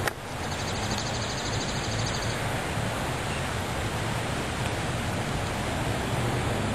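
Steady wind noise rushing and rumbling on the camera microphone outdoors. There is a click right at the start and a faint, high, rapid trill for about two seconds shortly after.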